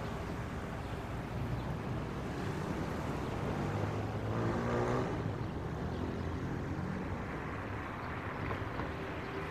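Street traffic with a steady low rumble. A motor vehicle's engine passes about halfway through, the loudest moment, its pitch rising as it goes by.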